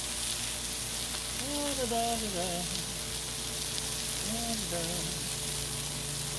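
Smash burger patties sizzling steadily on a Blackstone flat-top griddle: a continuous high hiss of frying beef fat on the hot steel.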